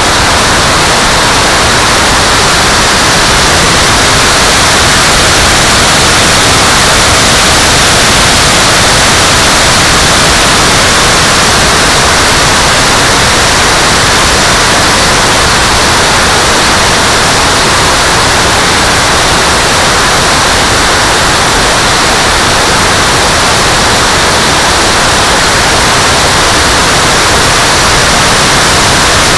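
Loud, steady rushing noise of airflow and an electric ducted fan, heard from a camera mounted on the nose of a Scorpion RC EDF jet in flight.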